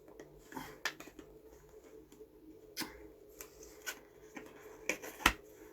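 Hands working at a DVD box set's outer box, trying to open it without ripping it: scattered light clicks and taps, with a sharper knock near the end.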